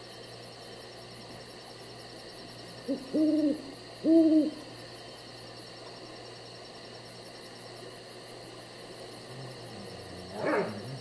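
An owl hooting twice in quick succession, each hoot arching up and down in pitch, over a steady background hum. A short, fainter sound follows near the end.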